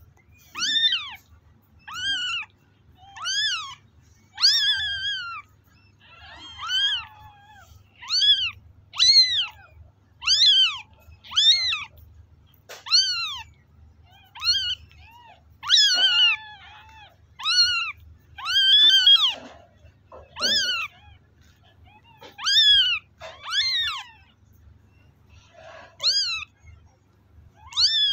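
Newborn kitten mewing over and over, a high-pitched call about once a second, each one rising then falling in pitch.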